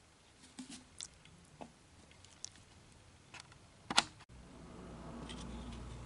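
Soft wet squelches and light clicks of hands mixing and shaping raw chicken mince, with a sharp knock about four seconds in, followed by a steady low hum.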